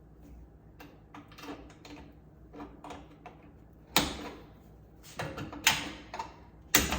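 Screwdriver working the metal hinge locking tabs of a wall oven door: light scraping and ticking, then sharp clicks about four seconds in, again a little later and near the end as the tabs snap into their locked position.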